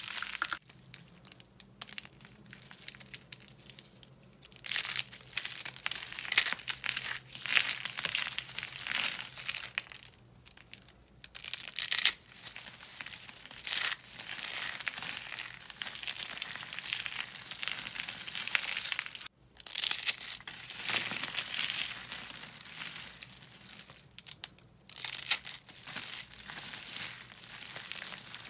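Dry soap crunching and crumbling as it is crushed, with a dense crisp crackle in long spells broken by short pauses. It is quieter for the first few seconds, then grows louder.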